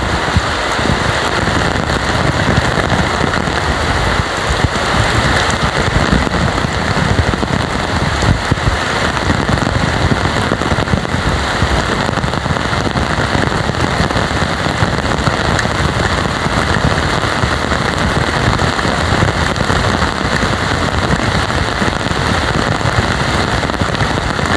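Heavy rain pouring down steadily, a dense even hiss with a close, fine crackle of drops striking surfaces.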